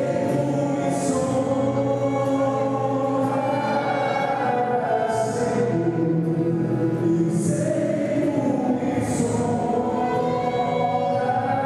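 Choir singing in long, held notes.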